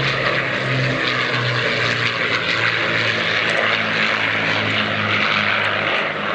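Avro Lancaster bomber's four Rolls-Royce Merlin piston engines running in a low flypast, the engine note sinking slightly in pitch as it passes.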